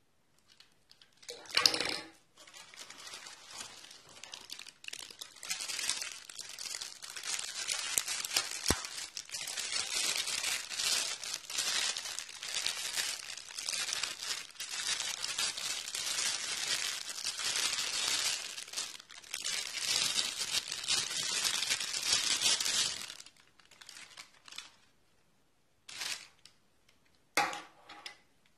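Thin clear plastic bag crinkling and rustling as hands open it and pull out a coiled microphone cable. There is a short, louder burst about two seconds in, a steady crackle for most of the time, and two brief bursts near the end.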